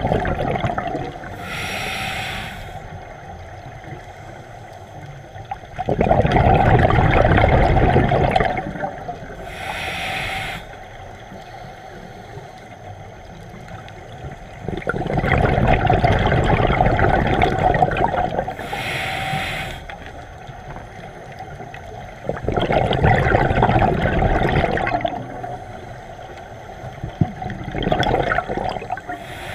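Scuba diver breathing through a regulator underwater: a brief hiss on each inhale and a longer, louder rush of bubbles on each exhale, repeating every several seconds.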